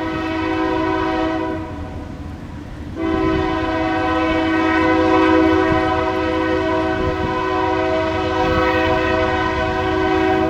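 Union Pacific freight locomotive air horn, several notes sounding together in one chord. It gives a short blast of about a second and a half that drops to a faint low note, then a long steady blast of about seven and a half seconds, over the low rumble of the train. It is the warning a locomotive sounds for a grade crossing.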